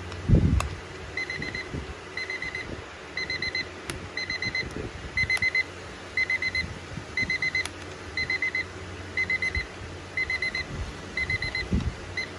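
Digital alarm clock sounding its alarm: high-pitched beeps in groups of four, the groups repeating about once a second. A loud low thump comes just before the beeping starts.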